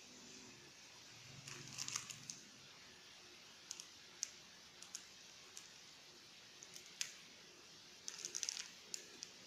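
Plastic instant-noodle packet crinkling as it is picked up and handled, two short bursts of crackling about two seconds in and again near the end, with a few single crackles between, over a faint steady hiss.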